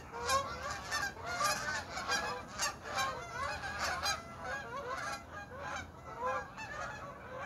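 A large flock of geese honking as it flies overhead, many calls overlapping in a continuous chorus.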